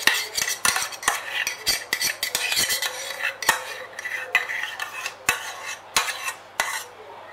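A spoon scraping and clinking against a small saucepan in quick, irregular strokes as thick cherry-syrup topping is scraped out. The strokes thin out near the end.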